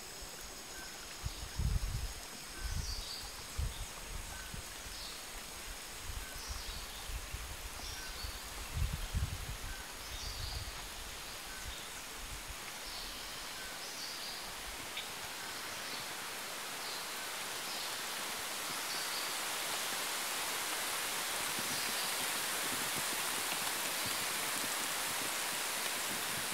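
Rain falling on tropical rainforest foliage, a steady hiss that grows heavier about halfway through. Through the first half, a short high call repeats about every second and a half, and low rumbling thumps come and go.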